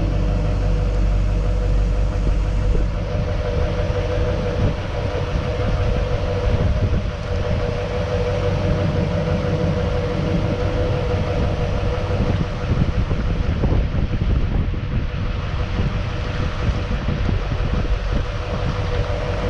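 2008 Chevrolet Silverado 3500 HD's Duramax LMM 6.6-litre turbo-diesel V8 running steadily on the move, heard through its stock muffled exhaust, with a deep rumble and a steady hum; the lowest rumble eases about three seconds in.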